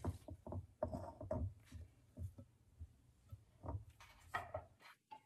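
A spoon stirring and scooping very thick pumpkin muffin batter in a glass bowl: faint, irregular scrapes and soft knocks, roughly three a second.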